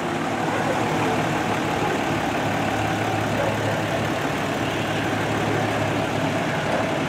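Engines running: a fire engine idling while a fire department pickup truck drives slowly past. A steady low hum grows stronger about two and a half seconds in.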